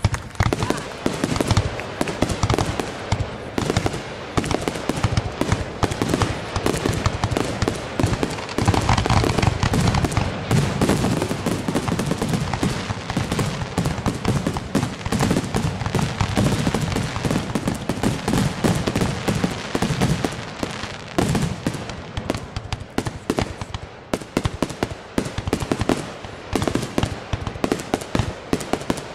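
Fireworks going off in a rapid barrage of bangs and crackles. The bursts come thickest through the middle and fall into more separate bangs near the end.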